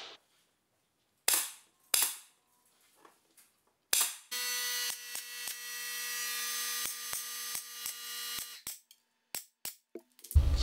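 Pneumatic stapler firing three sharp shots, staples driven into a poplar crown-molding miter joint. It is followed by a quieter steady hum with a pitch, with a string of light clicks through it.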